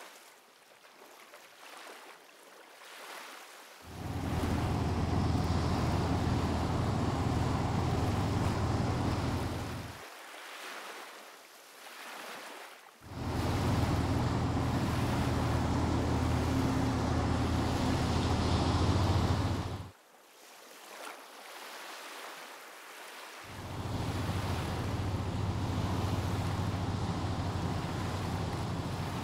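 Rushing wind-and-waves noise with a deep rumble, in three stretches of six to seven seconds each that start and stop abruptly, with a faint hiss between them.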